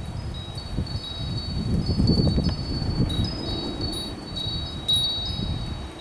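Wind chimes ringing, with short high notes at a few pitches sounding over and over, over a loud, uneven low rumble.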